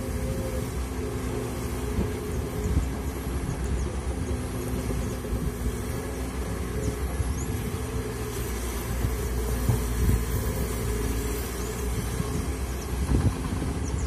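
Komatsu PC200 hydraulic excavator running steadily, its diesel engine and hydraulics working as the boom and bucket dig, with a faint steady tone over the engine's low rumble.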